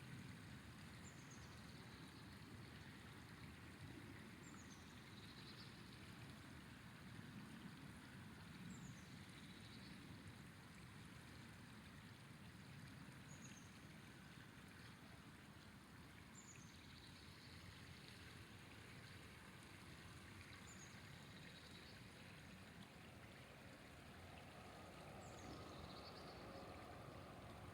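Faint, steady rushing of a flowing river. A short, high, falling chirp repeats every three to four seconds over it.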